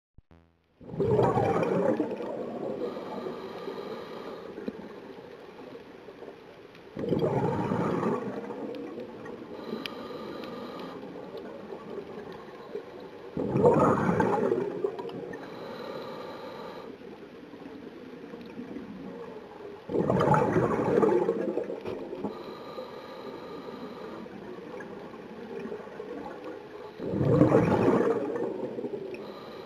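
Scuba diver breathing through a regulator underwater: five loud bursts of exhaled bubbles, about one every six and a half seconds, with quieter hissing inhalations through the regulator between them.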